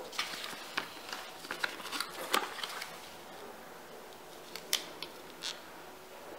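Faint paper handling as planner stickers are peeled off their backing sheet and pressed onto a page: a run of small crinkles and taps over the first few seconds, then two sharper clicks later on.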